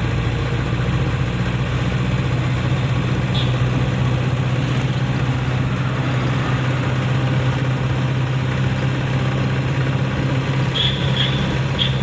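A 1996 Hindustan Ambassador Classic's 1500 cc BMC four-cylinder diesel engine running steadily as the car drives along, heard from inside the cabin as an even low hum with road noise.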